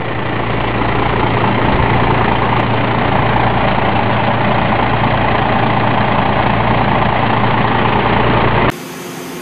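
Heavy diesel engine of construction machinery running loud and steady. It cuts off abruptly near the end, leaving a quieter background.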